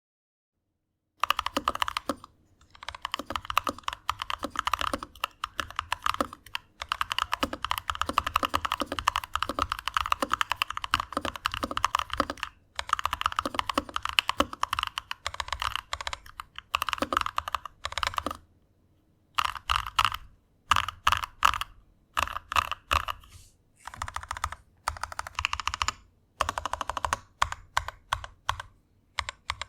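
Typing on a RAMA M60-A mechanical keyboard with brass weights, fitted with lubed Durock Ice King 68g tactile switches and thick PBT keycaps. It begins about a second in as a fast, continuous run of keystrokes, and after about 18 seconds it breaks into shorter bursts with pauses between them.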